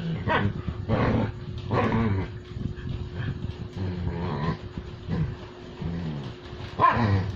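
A puppy and a larger dog play-fighting, with repeated short growls and grunts, the loudest shortly before the end.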